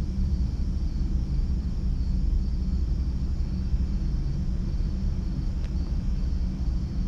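Night street ambience: a steady low rumble of distant traffic, with a faint high chirring of insects above it.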